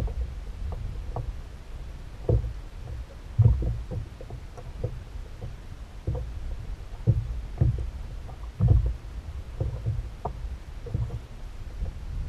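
Water lapping against a kayak's hull, with irregular low thuds and knocks, over a steady low rumble.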